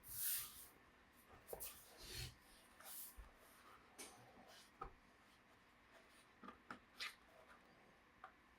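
Scattered light clicks and short scrapes of tools and hands working on a laptop's plastic case. The loudest is a scrape right at the start.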